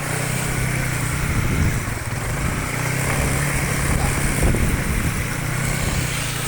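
Motorcycle engine running steadily at a low, even hum.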